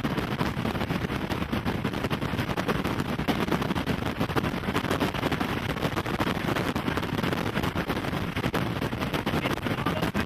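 Strong storm wind blasting the microphone, a steady rough rumble thick with rapid crackles.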